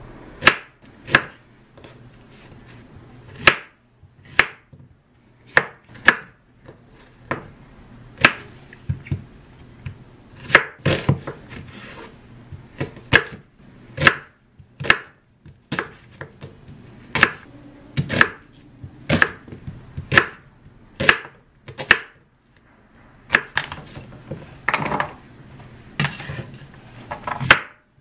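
Chef's knife slicing Korean zucchini and then onion on a wooden cutting board: sharp, unevenly spaced knocks of the blade hitting the board, about one or two a second.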